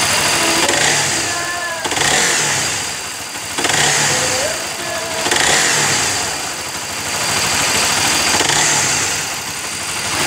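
Honda CBR motorcycle engine revved in several short throttle blips over its idle, each rise and fall lasting one to two seconds. It is being revved to bring out a timing-chain noise.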